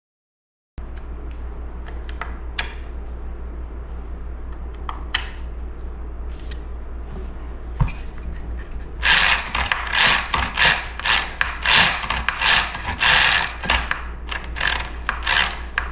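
Recoil starter of a vintage Montgomery Ward 10-inch chainsaw pulled in quick short strokes, its pawls ratcheting against a badly worn flywheel hub in a rapid series of rasping clicks. Before that, only faint scattered clicks over a steady low hum.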